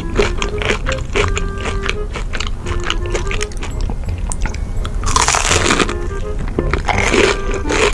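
Close-miked crunchy chewing of deep-fried breaded snack balls, with a loud crisp bite into a fresh one about five seconds in and more crunching after. Background music plays throughout.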